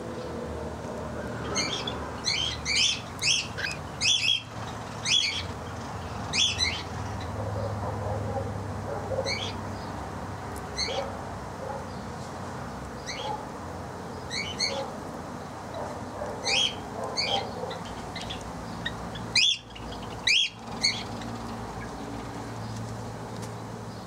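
Aviary birds calling: repeated short, high chirps in clusters of two or three, with fainter lower calls underneath. Two sharp knocks about two-thirds of the way through are the loudest sounds.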